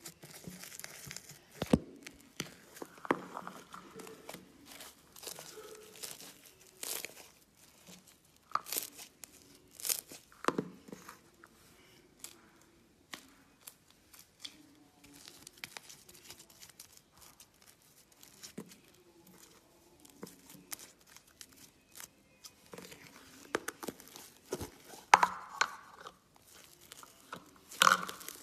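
Slime being squeezed, stretched and pulled apart by hand, giving irregular sticky crackles, pops and tearing sounds, busiest in a few bursts.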